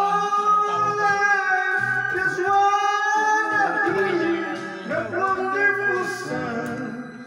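A man singing karaoke into a handheld microphone over a backing track, holding long notes; the singing grows quieter in the last couple of seconds.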